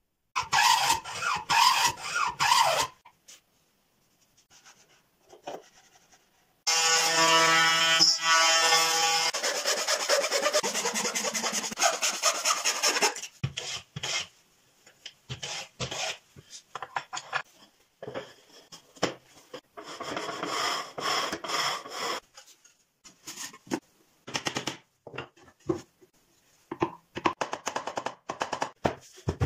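Hand woodworking: repeated strokes of a hand plane shaving wood, with a couple of seconds of a steady pitched sound about a quarter of the way in, and sharp hammer taps on a wooden frame near the end.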